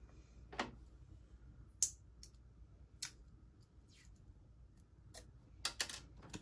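A scattering of light clicks and taps from sheets of paper and craft materials being handled on a table, a close cluster near the end.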